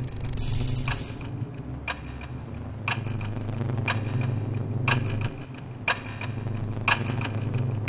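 Clock-like ticking, about one sharp tick a second with a few fainter ticks after each, over a steady low drone, as in a tension sound design.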